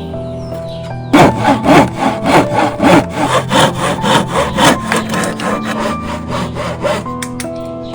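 Hand saw cutting through wood in quick back-and-forth strokes, about three a second, starting about a second in and easing off near the end, over background music.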